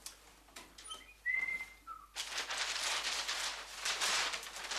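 A short whistled note, then a brief lower one. After that, large sheets of brown paper rustle and crinkle as they are handled, and this paper noise is the loudest sound.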